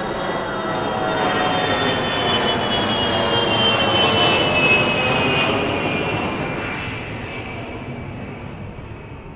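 Boeing E-3 Sentry AWACS jet passing low overhead on its four turbofan engines. The sound grows to a peak about halfway through, then fades away, with a high whine that slides down in pitch as it goes by.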